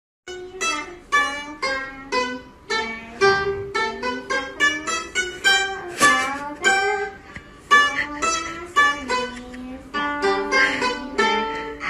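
Pipa being played: a melody of plucked notes, several a second, each ringing briefly, with some notes bent in pitch.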